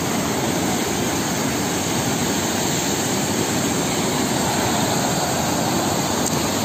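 A swollen, muddy mountain stream rushing over boulders: a steady roar of fast-flowing water.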